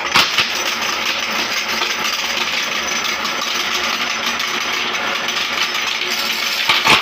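Glass marbles clattering and clinking steadily against each other and the plate as it is moved, with a louder burst near the end as they pour into the meat grinder's metal hopper.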